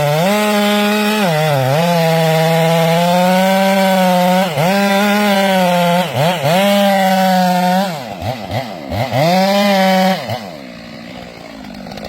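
Chainsaw at full throttle, cutting into a tree trunk during a felling back cut, its pitch dipping briefly a few times as the chain loads in the wood. Near the end the revs drop and rise several times, then it falls to a low idle about ten seconds in.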